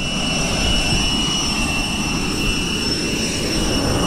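Jet airliner running on the apron: a steady high-pitched whine of several pure tones over a low rumble.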